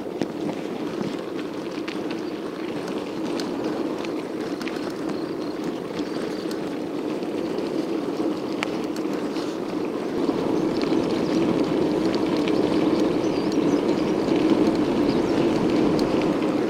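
Steady wind and road rumble from riding a bicycle, with scattered faint clicks and rattles, growing louder about ten seconds in.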